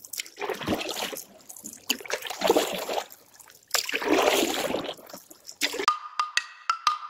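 Canoe paddle strokes swishing and splashing through calm water, four strokes a second or two apart. Near the end, sharp clicks and a steady high tone come in as music begins.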